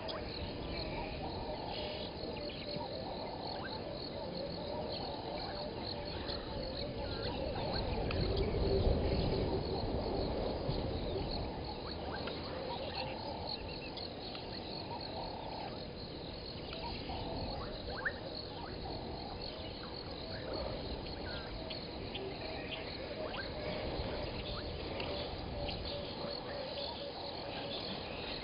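A steady evening chorus of frogs and insects at a waterhole, with repeated trilling and small high chirps throughout. A louder swell of low, rushing noise rises and fades around eight to ten seconds in.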